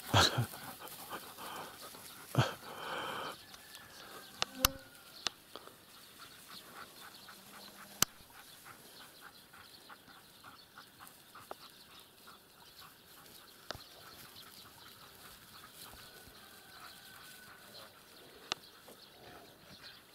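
A dog barks a few times in the first few seconds, with several sharp knocks. After that there is a quiet stretch with only faint ticking.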